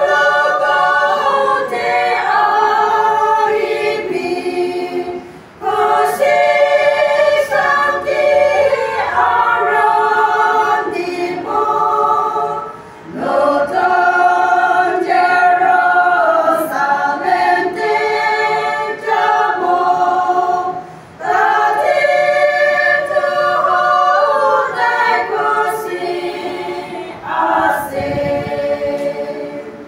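A small women's choir singing a cappella, several voices together in sustained sung phrases with short breaks for breath every several seconds. The singing falls away at the very end.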